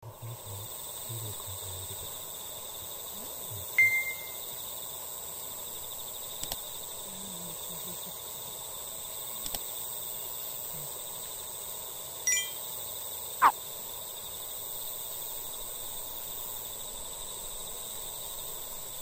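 A steady, high-pitched chorus of crickets and other insects trilling. It is broken by a short ringing tone about four seconds in, a few faint clicks, and a quick falling whistle about two-thirds of the way through.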